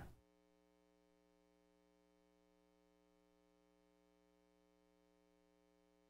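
Near silence: only a faint, steady electrical hum.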